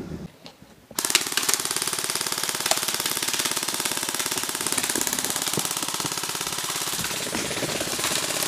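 A gun firing on full auto: a long, unbroken burst of very rapid shots that starts suddenly about a second in and keeps up at an even rate.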